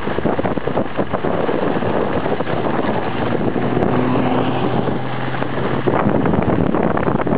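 Wind buffeting the microphone and skis scraping over packed snow while skiing downhill. A snowmobile engine hums faintly underneath for a couple of seconds in the middle.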